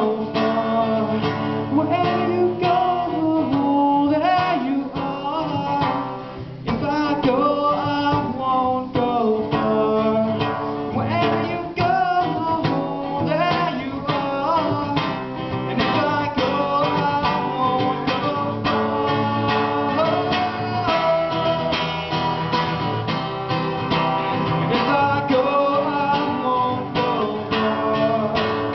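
Steel-string acoustic guitar strummed steadily, with a man's voice singing over it at times.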